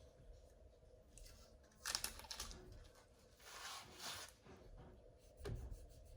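Faint rubbing and scraping of cloth cleaning patches being wiped around inside a rifle's action, in two short scrubbing spells, then a dull knock about five and a half seconds in.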